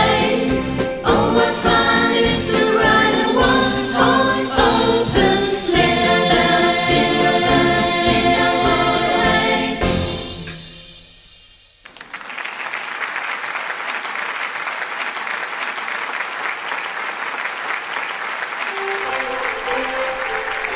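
Upbeat Christmas song sung by a group of voices over a band with a steady beat, fading out about ten seconds in. Then steady applause, with a soft melody starting under it near the end.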